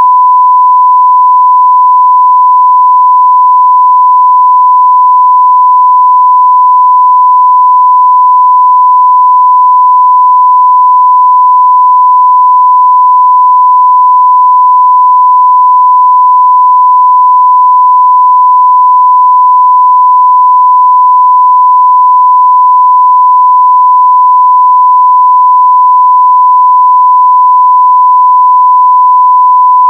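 A 1 kHz sine-wave test tone at full level, held perfectly steady without a break.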